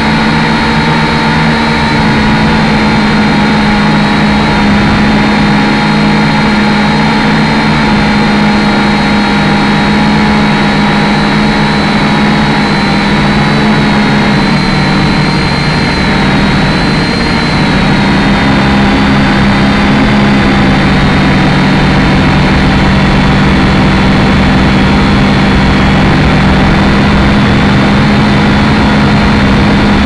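Small drone's electric motors and propellers whining steadily, heard close up from on board. The whine's pitch dips and shifts slightly about halfway through as the drone manoeuvres.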